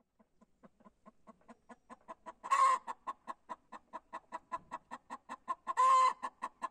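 Hen clucking in a fast, even run of about six clucks a second that grows louder, broken twice by a long, loud squawk: the cackle of a laying hen, her egg song.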